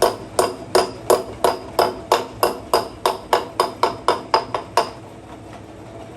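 Hammer striking metal in a steady series of ringing blows, about three a second, stopping about five seconds in.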